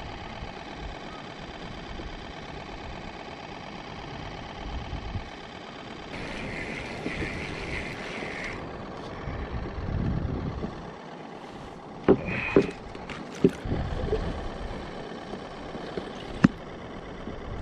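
Steady wind and water noise around a fishing kayak at sea, with a hissing patch partway through and several sharp knocks in the second half, typical of gear or a paddle striking the plastic hull.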